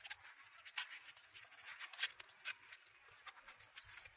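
Hands rubbing coarse salt and turmeric into the flesh of a split trevally: faint gritty scraping in short, irregular strokes, with a couple of slightly louder scratches about one and two seconds in.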